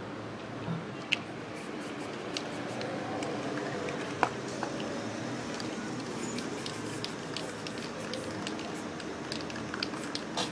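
Aerosol spray-paint can hissing as paint is sprayed onto the sheet, with scattered sharp clicks, the loudest about four seconds in.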